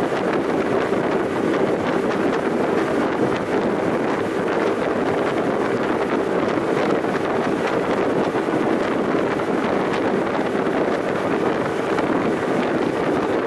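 Wind buffeting the microphone over the steady drone of a boat's engine as the boat cruises along, even and unbroken throughout.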